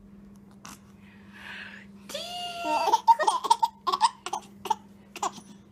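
Baby laughing while being tickled: a run of short bursts of giggling that starts about two seconds in.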